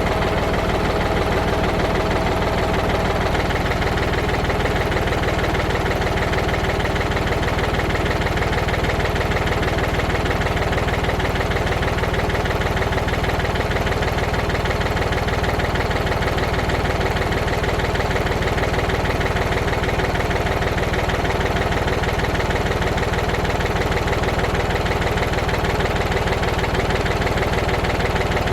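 Tractor engine running steadily at idle with a fast, even firing rhythm.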